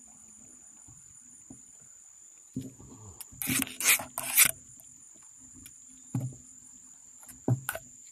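Steady high-pitched insect drone from the riverbank, with rustling and rubbing handling noise close to the microphone as a caught giant river prawn is held and turned in the hands; the handling is loudest about three and a half to four and a half seconds in, with a few softer knocks and rubs later.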